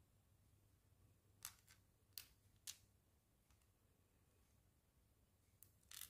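Small plastic mini building bricks clicking as they are picked from a pile and pressed together: a few short sharp clicks in the first half and a louder double click near the end.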